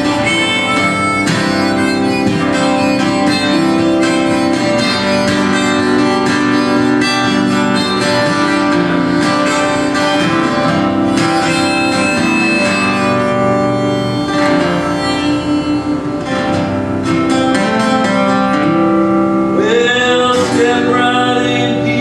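Acoustic guitar strummed under a harmonica solo played from a neck rack, in a live folk-Americana song. Near the end the harmonica stops and a male voice comes in singing.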